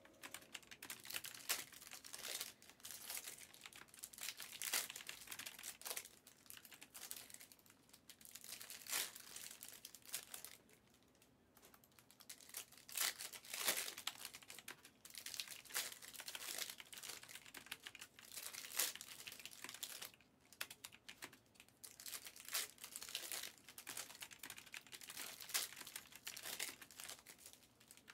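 Foil trading-card pack wrappers and packaging crinkling and tearing as they are handled and ripped open, in irregular rustling spurts. There is a quieter lull about ten seconds in.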